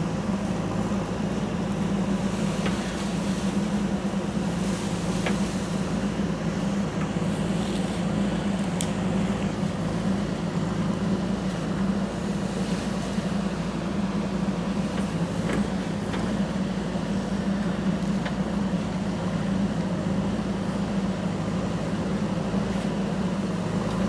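JCB 3DX backhoe loader's diesel engine running at a steady speed, with a few faint clicks and knocks from the digging.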